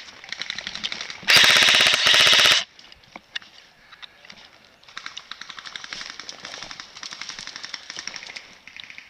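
Airsoft guns firing on full auto. One loud burst lasts about a second, starting about a second in, and quieter, more distant rapid fire runs before and after it.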